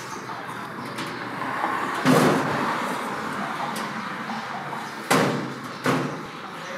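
A rumbling clatter about two seconds in, then two sharp knocks or bangs near the end, about a second apart.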